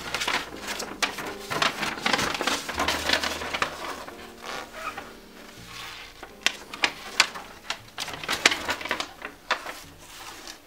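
Paper leaflet rustling and crackling as it is unfolded and shaken open by gloved hands. A dense rustle gives way to sharper separate crinkles from about six seconds in.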